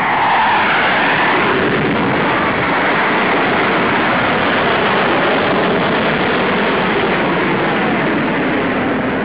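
Loud, steady jet noise from a fighter jet making a low pass.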